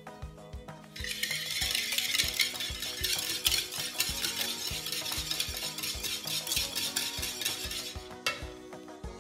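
Wire whisk beating egg and sugar in a mixing bowl, rapid strokes starting about a second in and stopping near the end, over background music with a steady beat.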